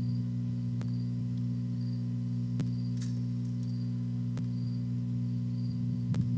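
Steady low electrical hum, with a faint high tone pulsing about once a second and soft clicks about every two seconds.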